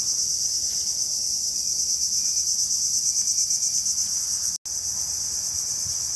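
Chorus of insects in tropical forest, a loud steady high-pitched buzz with a fast, even pulse. It cuts out for an instant about four and a half seconds in.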